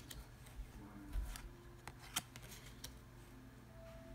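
Pokémon trading cards being flipped through by hand: faint card-stock sliding and several short, soft snaps as each card is pulled from the stack.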